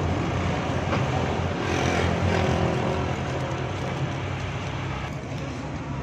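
A steady engine drone with a low, even hum.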